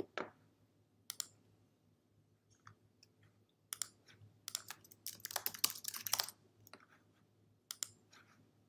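Computer keyboard typing in a quick run of keystrokes in the middle, with separate single clicks before and after it.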